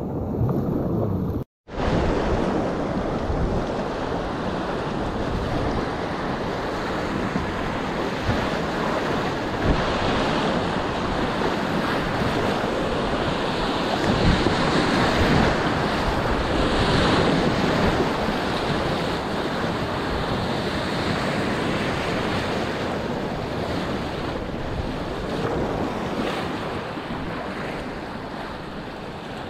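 Whitewater rapids rushing and churning loudly around a packraft, heard up close from the boat, with wind noise on the microphone.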